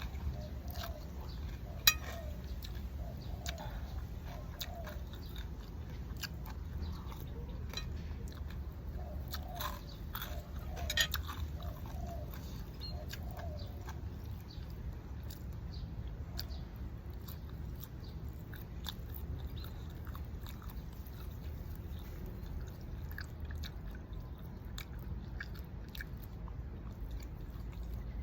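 A person eating a bowl of noodle soup close to the microphone: chewing and crunching, with scattered clicks and a sharp click about two seconds in and again about eleven seconds in.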